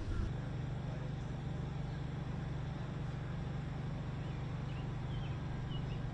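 Steady low hum of distant city traffic, with a few faint high chirps near the end.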